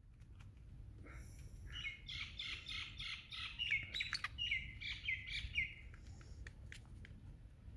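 Black francolin calling: a series of harsh repeated notes, about three a second, starting nearly two seconds in and stopping about six seconds in, over a steady low rumble.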